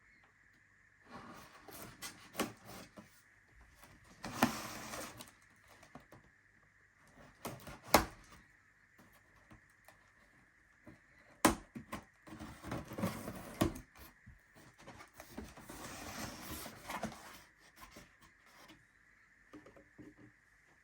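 Coffee machine box and its packaging being handled while unboxing: irregular bursts of rustling and scraping with a few sharp knocks, the two loudest about eight and eleven seconds in, over a faint steady high whine.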